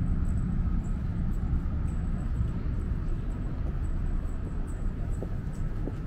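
Steady low rumble of city and station ambience, with faint light clicks of footsteps over it.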